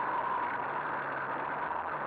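Two-stroke moped engine running steadily under way on a dirt track, its note holding even.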